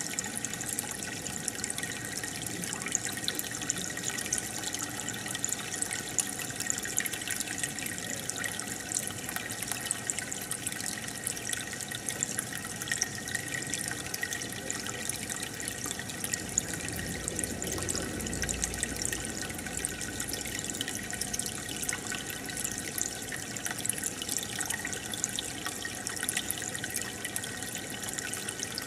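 Aquarium water bubbling and trickling from the air stone and filter: a steady stream of small bubble pops and splashes, with a faint steady hum.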